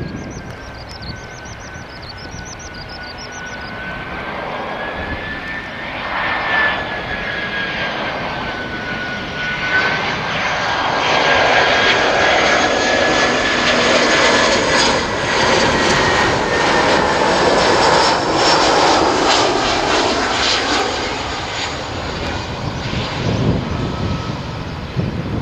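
Twin-engine narrowbody jet airliner on final approach passing low overhead: a jet rumble with a steady high engine whine that builds to its loudest around the middle, then fades as the aircraft flies on toward the runway.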